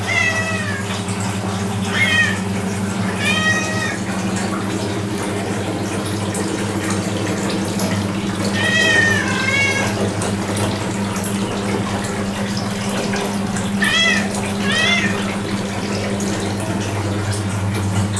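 Domestic cat meowing about seven times, singly and in pairs, over the steady rush of water running from a bath tap.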